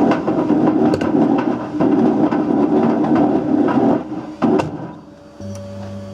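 Brick tumbling and banging inside the turning drum of a Whirlpool WWDC 7210/1 washing machine: a loud rumble full of knocks. It drops away about five seconds in, leaving a low steady hum.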